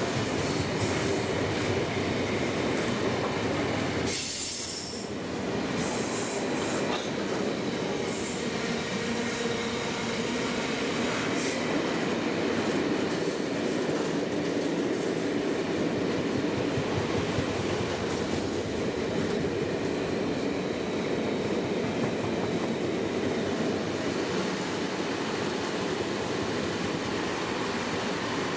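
Loaded freight wagons, box wagons and then covered hoppers, rolling past close by at speed: a steady noise of wheels on the rails, with a brief dip about four seconds in.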